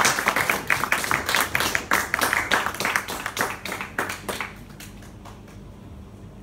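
Audience applauding with dense clapping that thins out and dies away about four and a half seconds in, leaving a few scattered claps.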